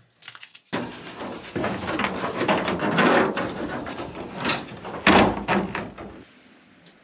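Rustling, scraping and knocking of something being handled and pulled up through a freshly cut floor hatch. The sound is uneven, with short knocks, and begins less than a second in.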